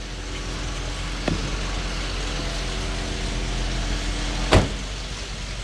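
Chrysler 2.7L V6 idling steadily with a clattering tick, which the mechanic takes for valve-train noise. A single sharp click comes about four and a half seconds in.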